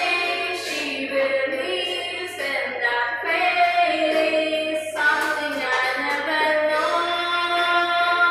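Karaoke singing: a woman sings a slow song into a handheld microphone, holding long notes, with music behind her.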